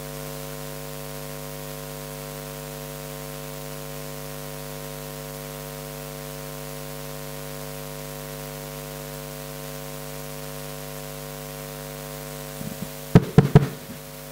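Steady electrical mains hum from a public-address sound system: a low buzz with several steady tones above it. A little before the end, a quick cluster of sharp knocks and thumps as a handheld microphone is handled.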